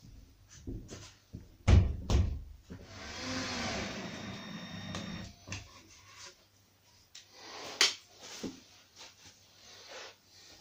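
Two loud knocks, then a cordless drill running steadily for about two and a half seconds as it works into a wooden wall bracket, followed by scattered light clicks and taps.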